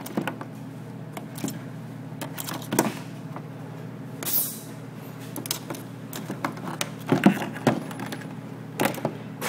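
Blue crabs scrabbling in a plastic tub, with irregular knocks, clicks and scrapes of claws and legs against the plastic. The knocks are busiest and loudest about seven seconds in. A steady low hum runs underneath.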